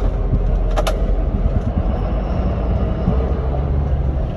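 John Deere 6920S tractor engine running steadily, heard from inside the cab, with a short rattle about a second in.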